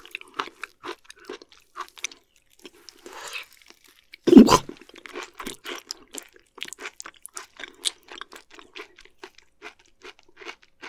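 Close-miked mouth sounds of chewing raw beef offal: a steady run of wet smacks and soft crunches, with one louder burst about four seconds in.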